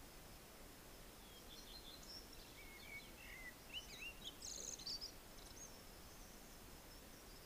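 Faint songbird song: a quick run of varied chirps and warbling notes that builds to its busiest and loudest about four to five seconds in, then fades. Underneath sit a steady background hiss and a thin, steady high tone.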